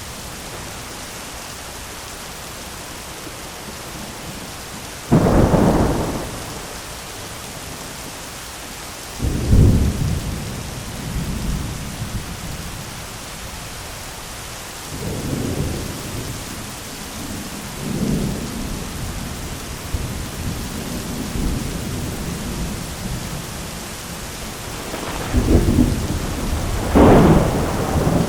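Heavy rain falling steadily on an umbrella during a thunderstorm, with thunder: a sudden loud clap about five seconds in, another near ten seconds, softer rumbles in the middle, and a long loud roll near the end.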